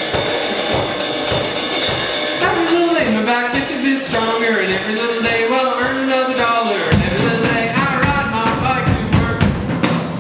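Live band playing a wordless stretch of the song, with a drum kit keeping a steady beat and a melody line over it. The low end is thin for the first seven seconds or so, then comes back in full.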